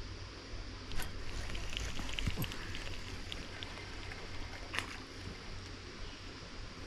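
Steady rush of creek water, with a few sharp clicks about a second in, just past two seconds, and near five seconds.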